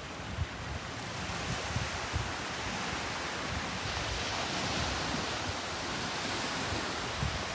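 Small waves breaking and washing up a sandy shore, the surf swelling about halfway through, with wind buffeting the microphone in low thumps.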